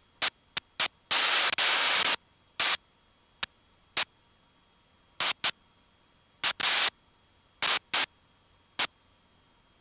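Bursts of static hiss on an aircraft headset audio feed, cutting in and out more than a dozen times with dead silence between, as the squelch opens and shuts. Most bursts are brief, and one lasts about a second.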